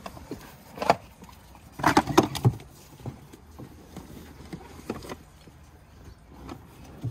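Irregular knocks and clunks of objects being handled and moved in a pickup's rear cab. There is a single knock about a second in, a quick cluster of several knocks around two seconds in, and another about five seconds in.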